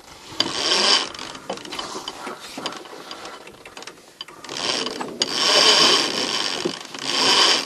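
Genoa sheet being hauled in around a yacht's cockpit sheet winch, the winch drum spinning with its pawls ratcheting. It comes in two spells: a short one near the start, then a longer, louder run from about four and a half seconds in to near the end.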